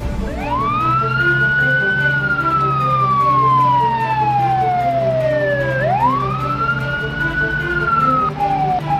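Cartoon siren sound effect: a wailing tone that rises quickly and falls slowly, twice, then breaks into short falling yelps near the end. It plays over background music and a steady low hum.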